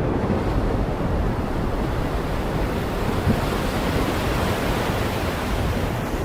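Heavy rain pouring steadily: a dense, even wash of noise, heaviest and deepest in the low end.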